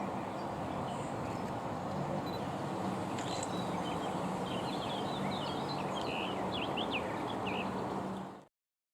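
Outdoor background noise, steady throughout, with small birds chirping and twittering from about three seconds in. The sound cuts off abruptly near the end.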